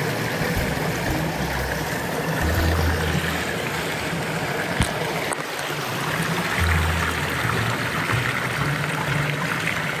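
Mountain stream water running over rocks, a steady rushing noise, with one sharp click about five seconds in.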